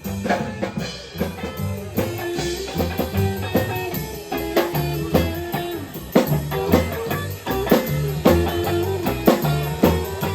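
Live rockabilly band playing an instrumental break: drum kit keeping a steady beat, with walking bass and electric guitar.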